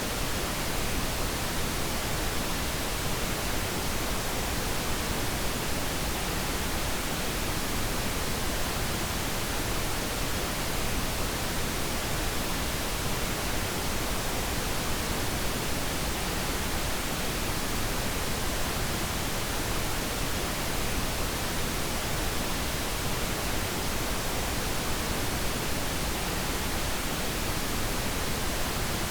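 A steady, unchanging noise track played as a sleep aid: an even hiss spread across high and low pitches, with no rhythm, tones or breaks.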